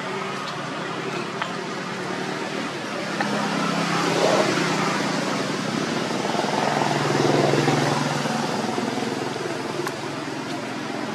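Motor vehicles passing on a nearby road: a steady traffic hum that swells twice, about four seconds in and again about seven and a half seconds in.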